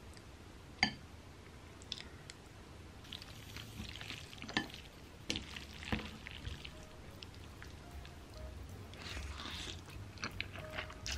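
Chopsticks mixing sauced cold noodles in a ceramic bowl: scattered sharp clicks of the chopsticks against the bowl and soft, wet squishing as the noodles are tossed.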